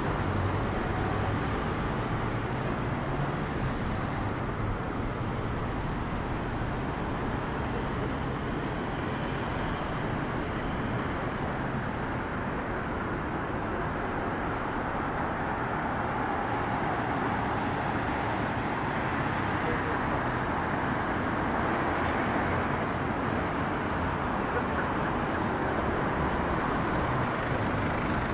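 Steady city road traffic noise, a continuous even rumble and hiss of vehicles.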